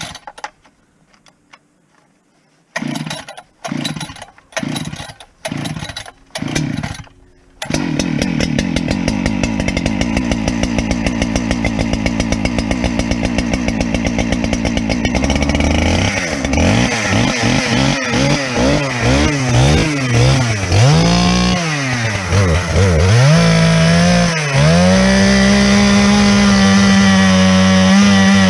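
Husqvarna 395, a 95cc two-stroke chainsaw, cold-started on choke. About six quick pulls of the starter cord are heard, then it catches about eight seconds in and runs steadily. From about halfway it is revved up and down several times, then held at a steady high speed.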